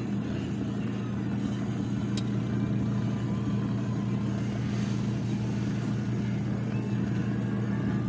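Small electric motor of a 45-288B mini portable washing machine running with a steady hum, turning the pulsator in the wash tub.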